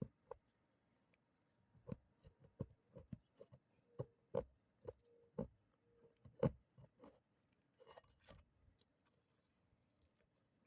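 Metal pry tool clicking, tapping and scraping against asphalt shingles and roofing nails as the nails are worked loose: a faint, irregular run of sharp ticks and knocks, the loudest about six and a half seconds in.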